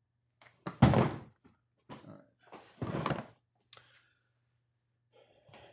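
Handling noise from a Milwaukee Packout fabric tool bag being moved and set down on a plastic Packout case: a few thunks with small clicks and rustles between, the loudest about a second in and another near three seconds.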